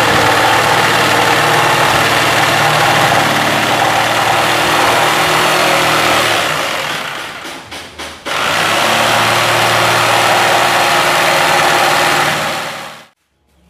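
Electric power tool running at full speed in two long runs, with a brief stutter and pause about seven to eight seconds in, then stopping near the end.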